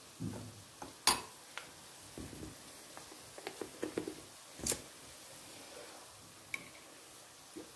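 Dishes and utensils being handled: scattered light knocks and clinks, with two sharper clacks about a second in and just under five seconds in.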